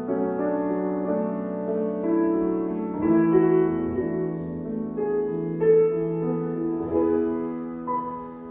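Grand piano playing an instrumental passage of sustained chords that change every second or two, with no voice over it.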